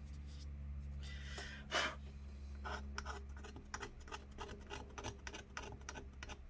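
A hand tool scraping old, crumbling battery adhesive out of a MacBook Pro's case. A longer scrape comes about a second and a half in, followed by a run of quick short scraping strokes and clicks, several a second.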